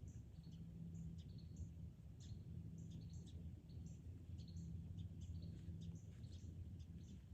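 Small birds chirping: short, high notes several times a second, over a steady low rumble.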